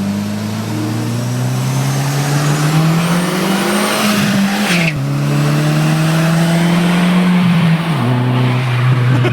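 Mk4 Volkswagen Golf's stock turbocharged engine pulling under acceleration, its pitch climbing and then dropping at gear changes about halfway through and again near the end, with a faint high turbo whistle over the engine note and a brief hiss at the first shift.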